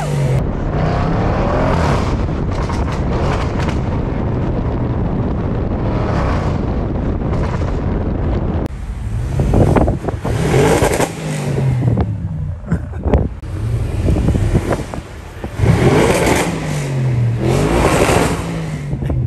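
Audi RS6 Performance's twin-turbo V8 exhaust, running loud at first, then revved hard in several runs that rise and fall in pitch as the car accelerates. A few sharp cracks come around the middle.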